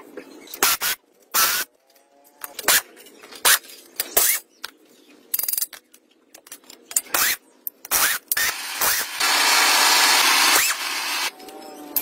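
Metal tools and tractor parts knocking and clicking in a string of separate sharp strikes during dismantling work, with a loud steady rushing noise lasting about a second and a half near the end.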